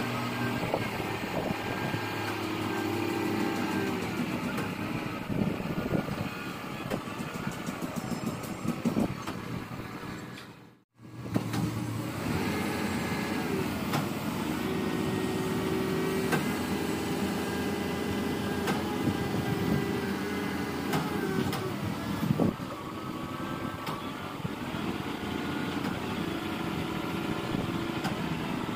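Diesel engine of a Kato SR250SP rough-terrain crane running and revving up and down as it hoists a steel roof truss, with a few sharp knocks. The sound cuts out briefly about a third of the way through.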